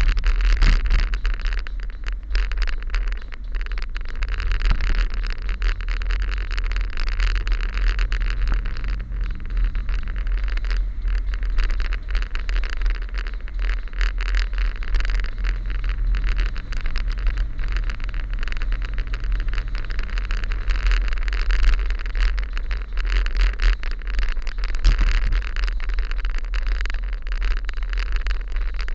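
A vehicle's engine running while driving, heard under heavy wind and road noise on the microphone; the engine note rises and eases twice as the speed changes.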